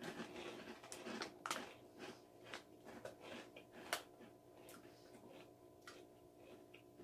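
Faint crunching of Takis rolled corn tortilla chips being chewed: scattered sharp crunches, the loudest about one and a half seconds in and again at about four seconds.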